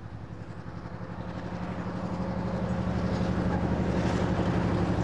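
Diesel locomotive hauling passenger carriages up a steep mountain grade, its engine running under load with a steady low drone and a fast even pulsing, growing louder as the train approaches.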